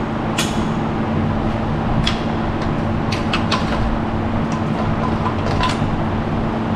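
Plasma cutter cutting through the steel frame rail: a steady loud hiss with a constant low hum under it and scattered sharp clicks.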